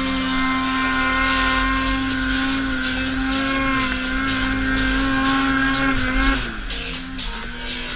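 Snowmobile engine running at steady high revs under throttle. About six seconds in the throttle eases off and the engine note falls to a lower, quieter speed.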